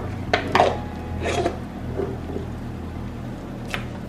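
A few light knocks and clinks of kitchen utensils and containers being handled, spaced irregularly, over a low steady hum.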